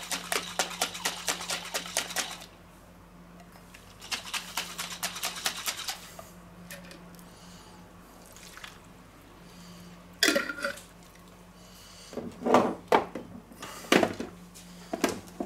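Pickle brine sloshing and rattling inside a capped mayonnaise jar as it is shaken hard in two quick spells to rinse it out, then poured and dripped into a steel bowl. A few knocks follow near the end as the jar and a plastic food chopper are set down on a wooden board.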